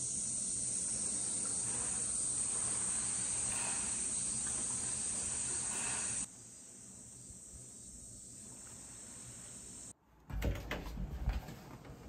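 Steady high-pitched drone of cicadas, loud for about six seconds and then fainter. About ten seconds in, it gives way to clicks and knocks of a hand working a door's lever handle and opening the door.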